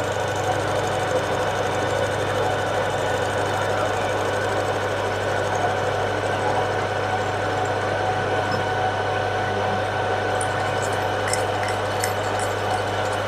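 Metal lathe running steadily while a carbide tool takes a facing cut across the end of a large round metal bar, with a constant motor and gearing hum. A few light ticks come near the end.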